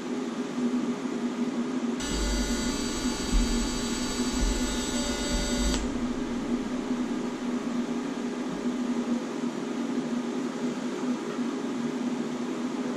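TIG welding arc on stainless steel tubing: the arc strikes about two seconds in, runs steadily with a buzzing whine for nearly four seconds, then cuts off suddenly. A steady hum sits underneath.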